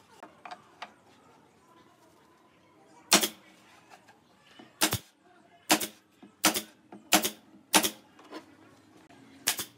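Pneumatic nail gun firing nails into pine trim, seven sharp cracks in all: one about three seconds in, another a couple of seconds later, then a quick run of four shots about two-thirds of a second apart, and a last one near the end.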